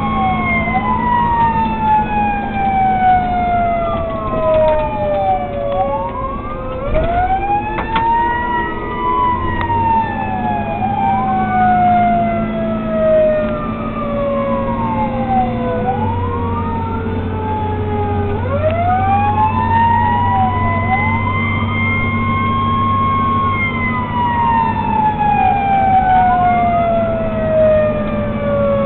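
Fire engine sirens wailing while responding, two at once: one rises and falls in arcs every few seconds, the other sweeps up quickly and then glides down slowly over several seconds. The truck's diesel engine drones low underneath.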